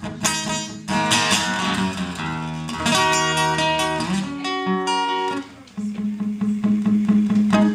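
Steel-string acoustic guitar played live, strumming chords in an instrumental break of a folk song, with a brief lull about five and a half seconds in.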